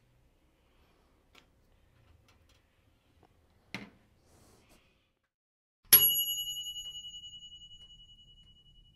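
A Sunbeam Mini Bake & Grill toaster oven's glass door knocks shut about four seconds in. About two seconds later the oven's timer bell dings once, loudly, and rings on, fading slowly: the heating time has run out.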